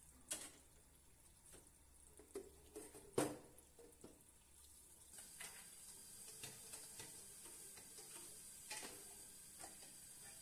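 Quiet handling sounds: scattered light clicks and knocks, the loudest about three seconds in, with a faint steady hiss from about five seconds on.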